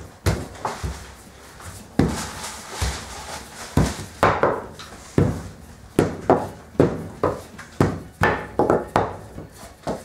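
Wooden rolling pin rolling out a sheet of laminated croissant dough on a stainless-steel worktop. A few scattered knocks give way, about four seconds in, to a steady run of short knocks, roughly two strokes a second.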